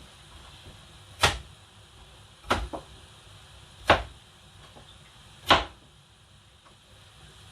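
Four sharp knocks, roughly a second and a half apart, the second followed closely by a smaller one.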